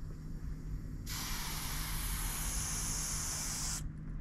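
Aerosol spray-paint can spraying, a steady hiss that starts about a second in and cuts off near the end, about three seconds of paint going onto the bus panel.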